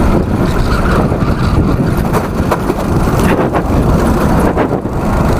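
A rental go-kart's small engine running under throttle at speed, heard from the driver's seat as a steady heavy low rumble.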